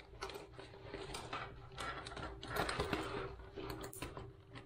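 Scissors cutting into a fabric motorcycle tank bag: irregular snips and small clicks mixed with the rustle of the bag being handled.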